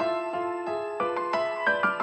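Background music: a gentle piano tune, with single notes struck about three times a second.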